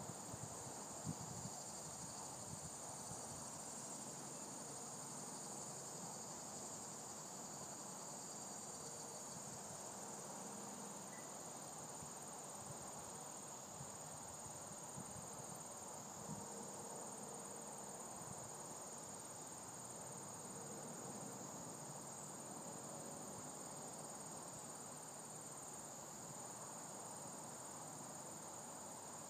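Steady, faint chorus of insects with a constant high-pitched buzz, over a soft even hiss.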